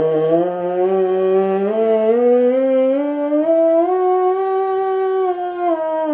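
A bass trombone mouthpiece buzzed on its own, without the horn: a bright, nasal pitched buzz. It climbs a scale note by note, then turns and steps back down about five seconds in.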